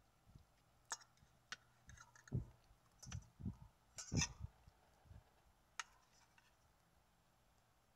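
Metal fork and spoon clicking and scraping against a plastic meal tray and the food on it, with scattered sharp clicks and a few soft knocks, the busiest stretch about four seconds in.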